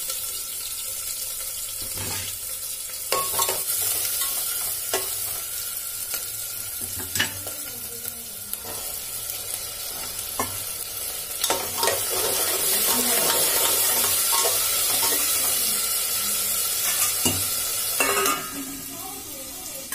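Chopped onion and green chillies sizzling in hot oil and cumin in an aluminium pressure cooker. They are stirred, and the stirring tool knocks and scrapes against the pot now and then. The sizzle grows louder past the middle and quietens near the end.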